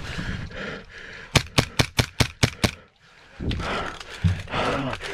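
Airsoft gun firing a quick string of about seven sharp shots in a little over a second, about a second and a half in.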